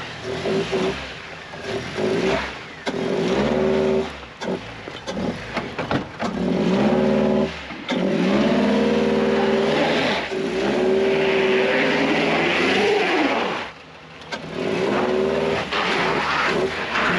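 A vehicle's engine revving in repeated bursts under load while crawling over rocks, its pitch rising and falling with short let-offs between the pushes.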